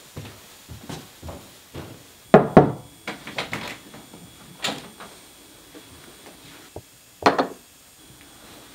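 Footsteps on a staircase, then a wooden interior door being knocked on and handled: two loud knocks about two and a half seconds in, more knocks and clicks after them, and a last heavy thump about seven seconds in.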